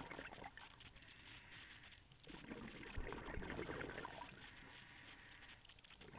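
Underwater sound of a scuba diver's exhaled bubbles from the regulator: a bubbling rush at the start, a short lull just before two seconds in, then a louder burst of bubbles that fades over the next couple of seconds.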